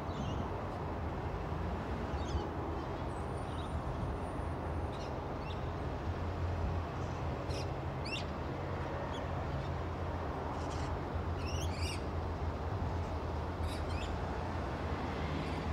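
Distant green waste garbage truck's diesel engine running with a steady low rumble. Birds call over it in short chirps and quick rising notes, a cluster of them around the middle.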